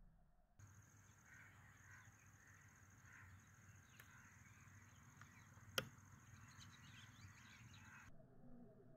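Near silence: faint outdoor background with a few soft, distant bird calls and a faint steady high whine, broken once by a single sharp click a little past halfway.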